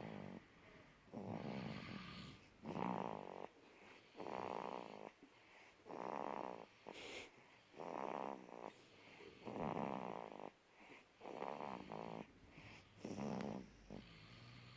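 Two sleepers snoring, one rasping snore after another about every one and a half to two seconds.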